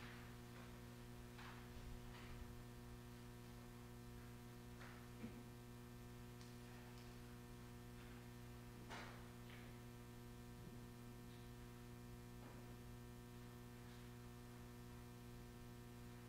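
Near silence: a steady low electrical hum, with a few faint, soft clicks and rustles now and then.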